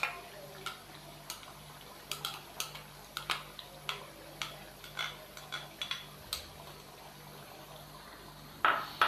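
A spatula scraping and tapping onion paste out of a glass bowl into a cooking pan: a run of irregular light clicks and knocks, with a louder knock near the end. A faint steady hum runs underneath.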